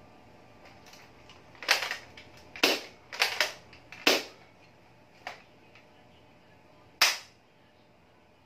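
Sharp snapping clacks from spring-type airsoft guns being worked and fired: a G888-1 M4-style rifle, then a Glock 17 Q1 pistol. There is a run of five clacks over the first four seconds or so, a fainter one a second later, and a single loud one about seven seconds in.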